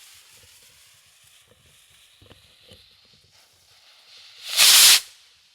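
Consumer firework rocket's launch hiss fading as it climbs, then the shell bursting with one loud boom about four and a half seconds in.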